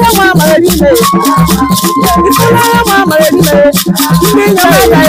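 Upbeat dance music with shakers keeping a fast beat over a repeating bass pattern, and a melody gliding up and down above it.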